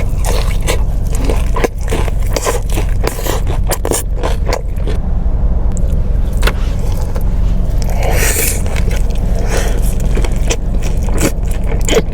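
Close-up mukbang eating: crunching and wet chewing of fried hot chicken, with many crisp clicks and smacks, over a steady low rumble.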